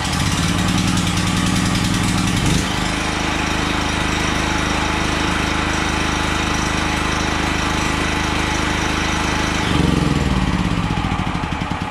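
Westinghouse WHXC8500E-PRO portable generator's engine running steadily just after a first-try electric start from cold, with the choke on. The engine note shifts about two and a half seconds in, then holds steady. Near the end the note changes again and begins to fade.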